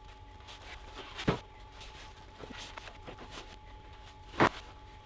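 Soft brushing and handling sounds as wood stain is brushed onto a plywood workbench, with two sharp knocks, one about a second in and a louder one near the end.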